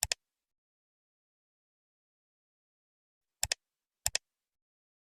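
Three sharp double clicks in otherwise dead digital silence: one at the start, then two more close together near the end, about two-thirds of a second apart.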